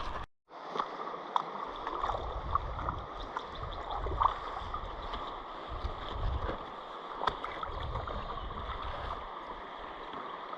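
Water around a kayak on a river, with a few light clicks and knocks and gusty wind rumble on the microphone.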